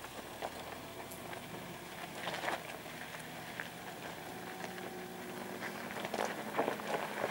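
Suzuki Jimny engine running steadily at low revs as it crawls up a rocky track, with stones crunching and clicking under the tyres, the crunching growing louder near the end.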